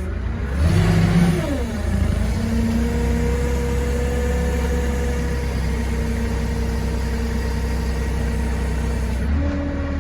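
Forklift engine revving up and back down about a second in, then running steadily at a held speed under load as the machine moves.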